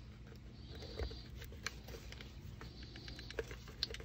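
Small scattered clicks and scrapes as the metal clips and webbing of a US clip-in M1 helmet liner are worked onto the studs inside an Iraqi M80 helmet shell, with a faint rustle of the webbing.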